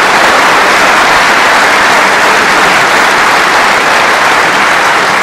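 Large audience applauding loudly and steadily: a dense, unbroken clapping.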